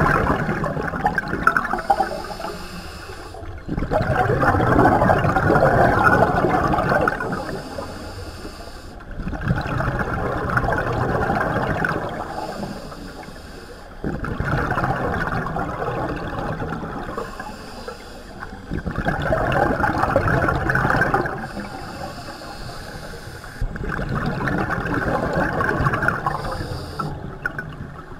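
Scuba diver breathing through a regulator underwater: exhaled bubbles swell up for two to three seconds about every five seconds, six times, with a fainter high hiss of the inhale between them.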